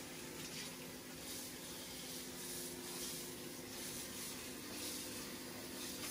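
Egusi soup simmering in a pot on low heat: a steady hiss with irregular bubbling, over a steady low hum.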